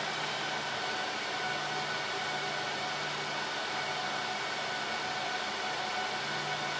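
Home-lab server and its cooling fans running: a steady whirring rush of air with a few faint steady tones held within it.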